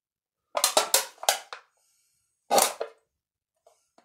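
Knife point striking and stabbing into a crushed aluminium soda can. There is a quick run of about five sharp taps starting half a second in, then one more hard hit about two and a half seconds in.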